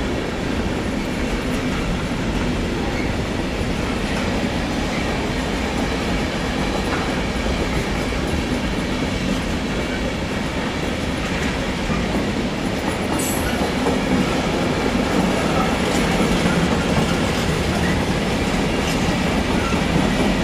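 Freight train passing through the station, its wagons rolling over the track in a steady, continuous noise that grows a little louder near the end.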